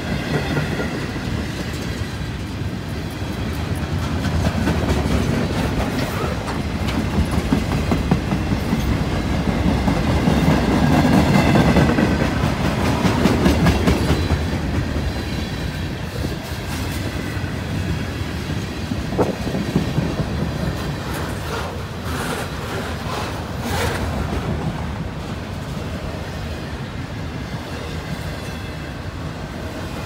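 Freight cars rolling past close by: a steady rumble of steel wheels on the rails with repeated wheel clicks over rail joints, swelling a little louder around the middle as tank cars and then autorack cars go by.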